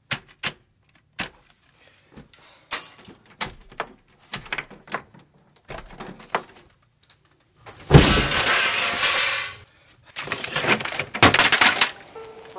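Computer keyboard being typed on, in scattered sharp key clicks. About eight and ten seconds in come two louder noises, each lasting a second or two.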